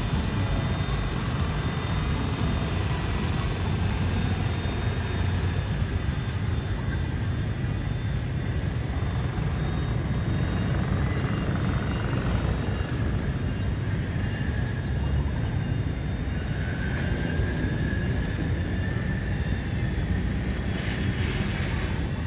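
Small remote-control helicopter (C186 Pro) flying, its motor and rotor giving a thin whine that shifts slightly in pitch with the throttle. Wind rumbles heavily on the microphone throughout.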